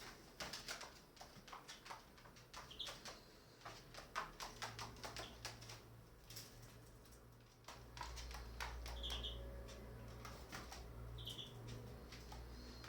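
Birds moving about indoors: irregular light clicks and taps of claws and beaks on a hard floor, with three brief high chirps. A low steady hum comes in about halfway through.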